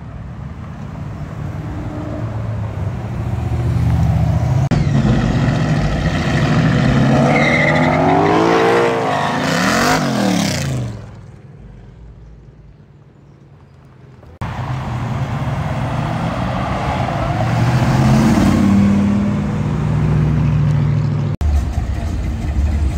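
Cars' engines driving past on a street: one revs up and goes by with its pitch dropping about ten seconds in, then after a quieter stretch another loud engine runs past and revs.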